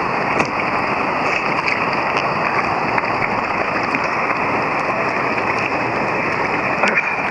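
River water rushing steadily, a constant noise, with a few faint scattered clicks.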